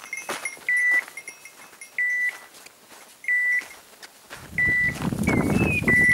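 Electronic beeper collar on a hunting dog giving short, even beeps about every 1.3 seconds, the pattern of a dog holding point. About four seconds in, a rough rustling noise joins it.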